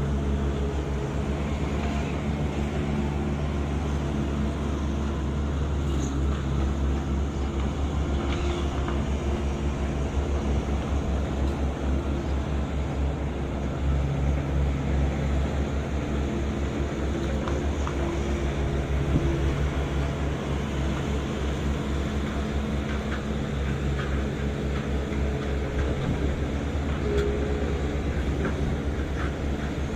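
Heavy construction machine's engine running steadily, a low, even drone throughout.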